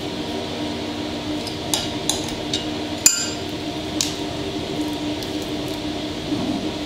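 A small glass bowl clinking and clicking as sticky slime is worked over it by hand: about half a dozen sharp clicks, the loudest about three seconds in, over a steady low hum.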